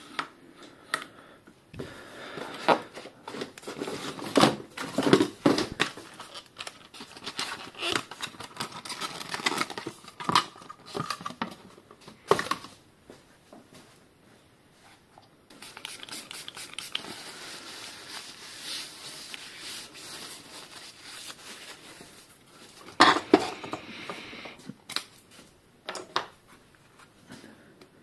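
Hands working at a bicycle repair bench: irregular rustling, clicks and scrapes of parts and packaging being handled. In the middle comes a steady hiss lasting about six seconds, and near the end a short burst of louder rattling and knocking.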